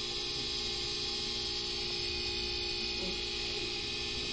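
Shop air compressor running with a steady hum, pressurising the car's air-conditioning lines toward 300 psi for a leak test.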